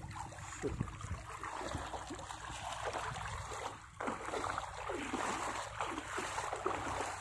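Water splashing, sloshing and dripping as a wet cast net is gathered up and lifted out of shallow water.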